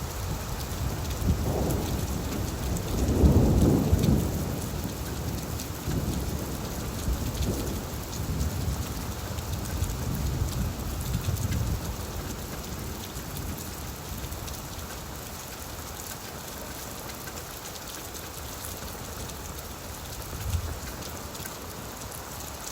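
Steady rain falling on leaves, with a low roll of thunder that swells to its loudest about three to four seconds in and rumbles away more weakly until about halfway through.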